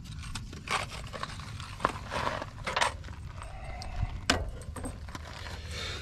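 Scattered light clicks, taps and short scrapes of small metal hardware being handled and fitted against a diamond-plate metal panel, over a steady low rumble.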